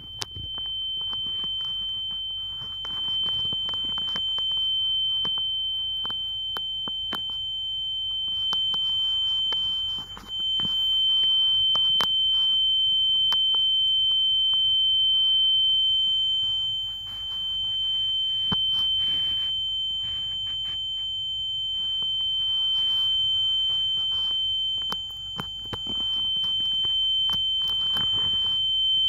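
A steady, high-pitched electronic tone held without pause, not beeping, with scattered small clicks and faint rustling beneath it.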